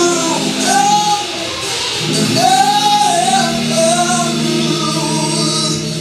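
Live gospel worship music: a singer's voice sliding through long runs over held chords from the band, with a high shimmer of cymbals.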